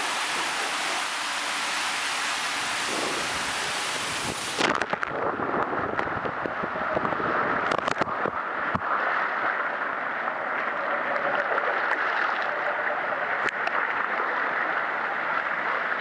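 Rushing water and an inner tube sliding through an enclosed water-slide tube, a loud steady hiss that cuts off abruptly about four and a half seconds in as the tube shoots out into the splash runout. Then splashing, and water churning steadily around the tube as it glides through the runout lane.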